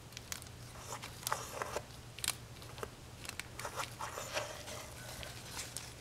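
Faint, scattered clicks and scratchy rustles of a long, thin pick-up tool prodding a rolled paper towel down into a spark plug well.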